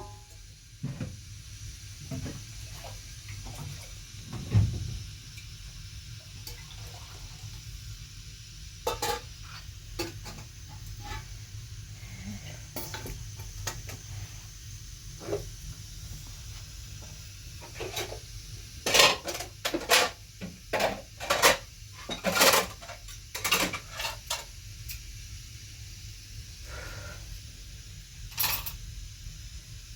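Dishes and utensils clinking and knocking as they are handled, in scattered single clinks with a busy run of them past the middle, over a faint steady low hum.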